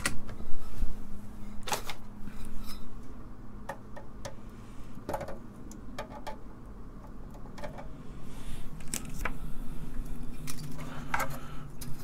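Scattered light clicks and rattles from a computer motherboard and its stiff component leads being handled and moved on a wooden turntable, over a steady low hum.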